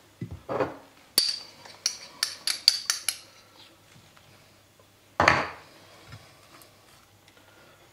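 Metal kitchen utensils clinking: a sharp click, then a quick run of about seven light clicks over the next two seconds. About five seconds in there is a single louder, short scuffing sound.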